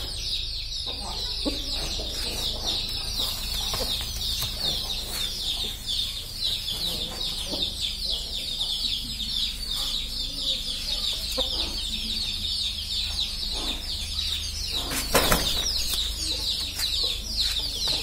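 Poultry coop sounds: a dense chorus of high, descending chirps runs throughout, with a few low clucks from Aseel chickens. A short, loud rustle comes about fifteen seconds in.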